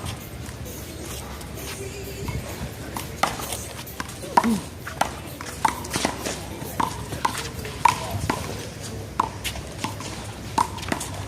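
A one-wall handball rally: a small rubber handball smacked by hand, slapping off the wall and bouncing on the pavement. A run of sharp pings comes about every half second to second from about three seconds in.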